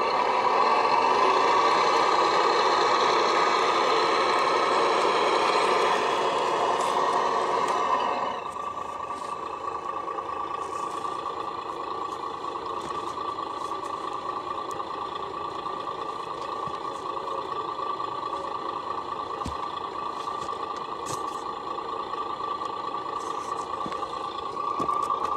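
Radio-controlled model truck's electronic engine sound, louder and fuller for about the first eight seconds, then dropping suddenly to a quieter, steady idle.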